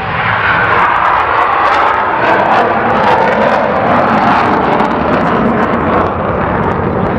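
Loud, steady rushing noise of an aircraft engine running nearby, swelling in the first second and then holding.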